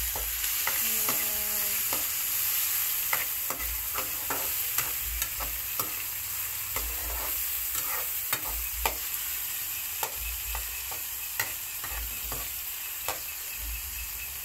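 Diced tomatoes, onions and garlic sizzling in oil in a metal wok, with a steady hiss, while a metal spatula stirs them and scrapes and clicks against the pan at irregular moments, about one or two a second.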